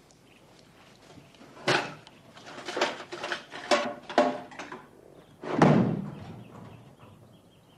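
A sharp knock, then a quick run of ringing knocks and scrapes, and a heavier thump near the end that dies away over about a second.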